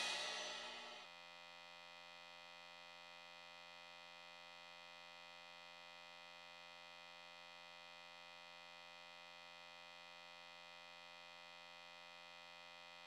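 The last hit of a Bacardi house track dies away within about the first second, then near silence.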